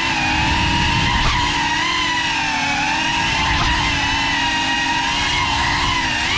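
FPV drone's motors and propellers whining steadily in flight. The pitch dips and swells briefly with throttle changes about a second in, midway, and at the very end, over a low rumble.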